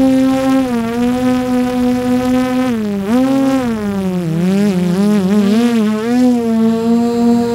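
DJI Air 3 drone's motors and propellers buzzing, heard from a camera strapped to the drone itself. The pitched hum holds steady, then dips and wobbles several times in the middle as the motors change speed, and settles again near the end.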